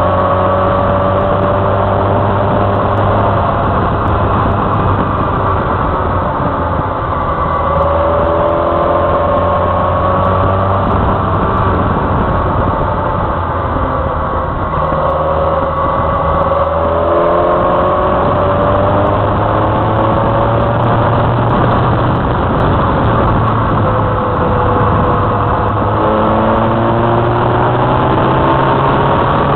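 Motorcycle engine running on the move, its pitch climbing slowly and then stepping back down several times as the rider accelerates and changes gear, over a steady rush of wind and road noise.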